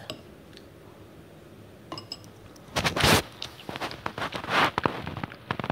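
Light clinks and clicks of small hard objects knocking together, with a short burst of hiss just before three seconds in.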